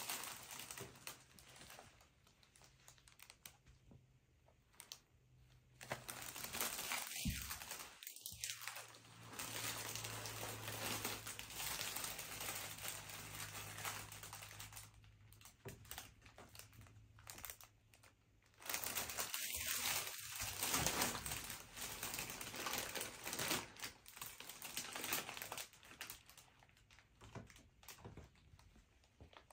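Gift wrapping and packaging crinkling in irregular bursts as a present is unwrapped.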